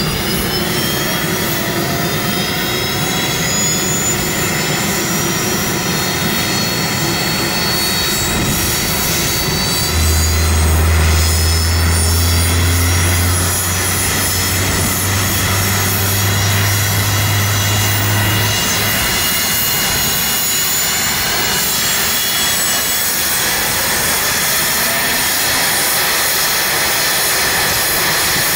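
MH-60S Seahawk helicopter running, its twin turboshaft engines giving a high whine that rises slowly in pitch over a steady rush of rotor and engine noise. A deep hum comes in about ten seconds in and drops away about eight seconds later.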